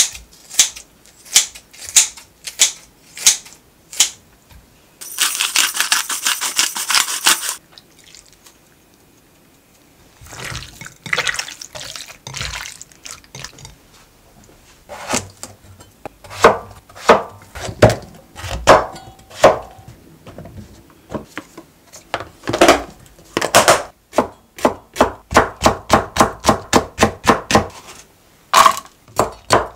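Kitchen scissors snipping raw chicken, about two sharp snips a second. A few seconds of hissing and some knocks and clinks of handling follow. Near the end a kitchen knife chops chili peppers on a cutting board, about four quick chops a second.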